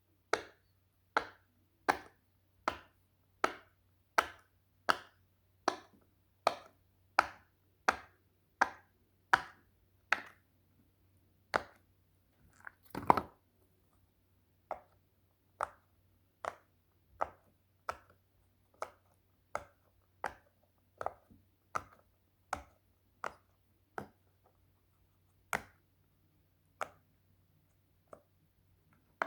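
A person making a popping sound over and over in a steady rhythm, about four pops every three seconds. There is a short break about eleven seconds in, then one louder pop, and the pops go on at the same pace.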